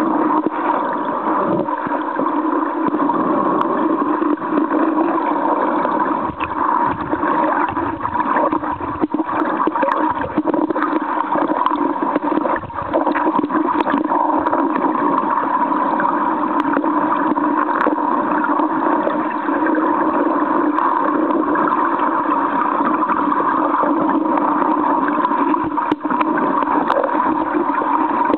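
Stream water flowing over rocks, heard with the microphone underwater: a steady rushing noise with a few faint clicks.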